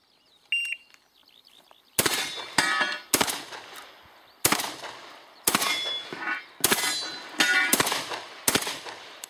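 A shot-timer start beep about half a second in. About ten shotgun shots follow, starting about two seconds in at uneven intervals, and several are followed by a metallic ring as steel targets are hit.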